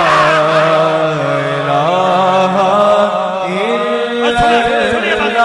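A man's voice drawing out 'ilaha' in a long chant on held notes that slide in pitch, heard over a PA system with an echo effect.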